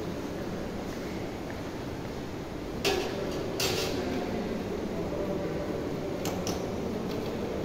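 Stainless-steel dishes and serving utensils clinking and clattering over steady background noise, with the loudest clatters about three seconds in and lighter clinks near the end.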